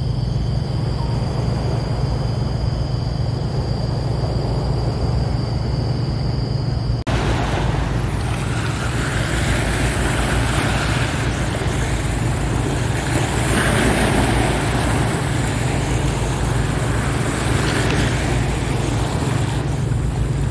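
A steady low rumble with a faint high steady whine. About seven seconds in it cuts sharply to sea waves washing over a rocky shore, swelling and falling every few seconds over the same low rumble.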